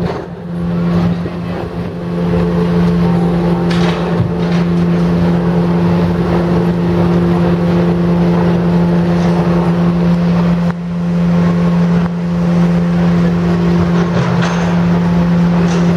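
Diesel road-construction machinery running nearby with a steady low drone, with a few short clanks of metal.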